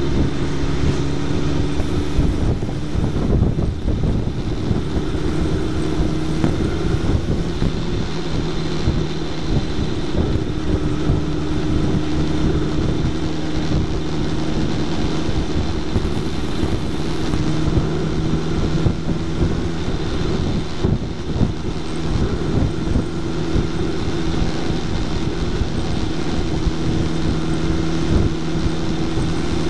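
Suzuki Hayabusa's inline-four engine running under way, its pitch holding fairly steady with small rises and dips, mixed with wind and road noise at the fairing-mounted microphone.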